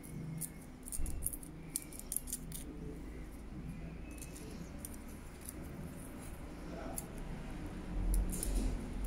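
Fine sandpaper on a thin stick rubbing the copper contacts of a car seat-adjustment switch: faint, scattered scratches and small clicks, with a dull handling bump near the end. The contacts are being cleaned of the dirt that stops the switch working.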